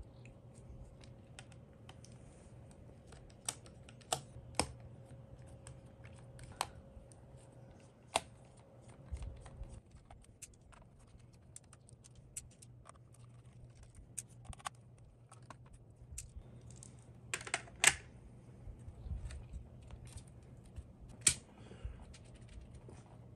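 Scattered small clicks and taps of keyboard parts being handled and taken apart, an HHKB Professional Hybrid Type-S keyboard being disassembled. There is a quick cluster of clicks about two-thirds of the way through.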